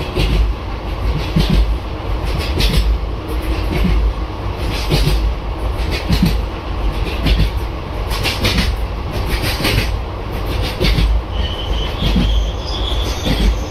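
Passenger express train running at speed: a steady low rumble with wheels clacking over rail joints about once a second. A thin wheel squeal comes in near the end.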